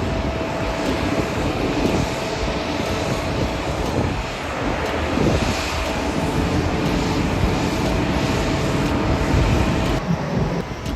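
Jet airliner engines running, a loud steady rushing drone with a thin steady tone that stops near the end.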